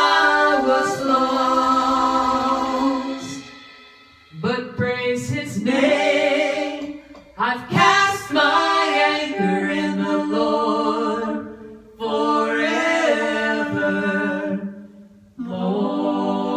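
A small gospel vocal group singing a cappella in close harmony, in several phrases separated by short pauses, with a chord held through the last second or so.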